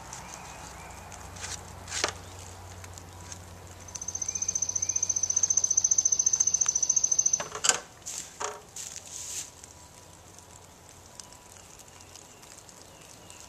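A bird's high, rapid, even trill, held about three and a half seconds, the loudest sound here. Around it come a few short knocks as someone climbs down a stepladder, with faint chirps early on.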